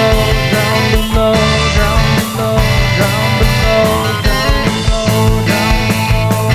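Rock band music with drums, bass and sustained guitar chords, a steady beat and no singing.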